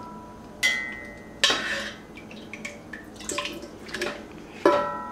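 Metal tongs clinking against a glass jar several times, the glass ringing briefly after some strikes, with wet splashes and drips as chipotles in syrup drop into the jar.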